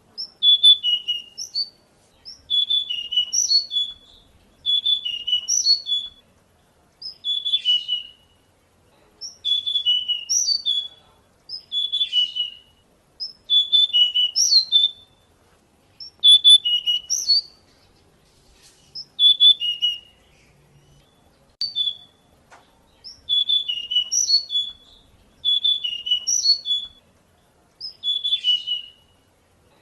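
Pied bushchat (decu) singing: short, brisk whistled phrases of a second or so, repeated about every two seconds with brief pauses between them.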